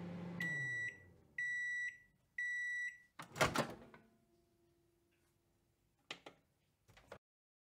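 Microwave oven finishing: its running hum winds down, then three high beeps about a second apart signal the end of the cooking time. The door then clunks open loudly, followed by a faint hum and two small clicks.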